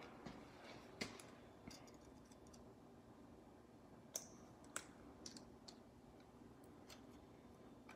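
Faint, scattered metallic clicks and ticks of a snap ring and snap-ring pliers as the ring is fitted into a disc mower cutter-bar gearbox housing.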